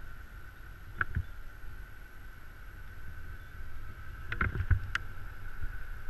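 A low steady rumble with a thin steady whine above it, and a few sharp knocks: one about a second in and a quick cluster between four and five seconds in.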